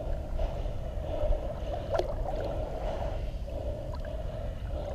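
Shallow water sloshing and lapping at the shoreline over a low steady rumble, with one sharp click about two seconds in.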